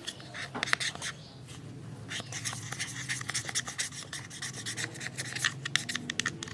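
Packaging being handled: crinkling, rustling and rubbing with many small crackly clicks.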